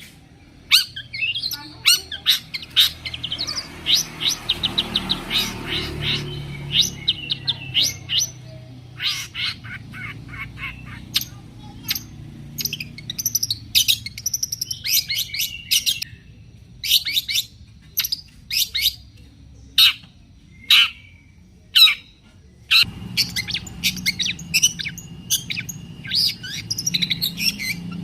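Long-tailed shrike (cendet) singing a busy, varied song of short, sharp chirps and harsh notes, with a quick rapid run of notes a few seconds in.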